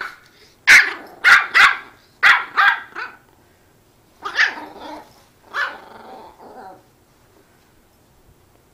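Dog barking in play during a play-fight: six sharp, quick barks in the first three seconds, then two longer barks about four and a half and six seconds in.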